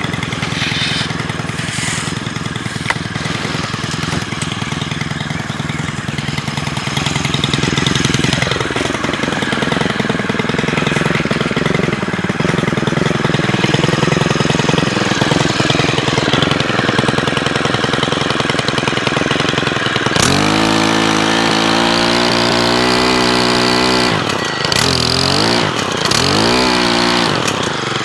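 Stihl HT103 pole saw's 4-MIX four-stroke engine, which runs on mixed gas, running at low speed to warm up. About twenty seconds in it is revved to a high steady speed, then the throttle is let off and opened again a few times near the end.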